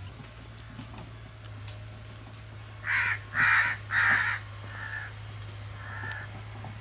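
A crow cawing three times in quick succession about three seconds in, then two fainter caws.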